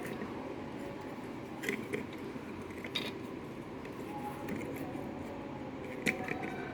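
A few small clicks and scrapes of plastic parts being worked apart by hand as the infrared board is removed from a Tapo C100 security camera, over a steady low hum.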